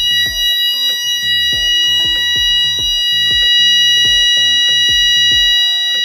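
Fire alarm sounding a continuous, steady high tone: the system in alarm after a manual call point was triggered for a test. Background music with a bass line and melody plays under it.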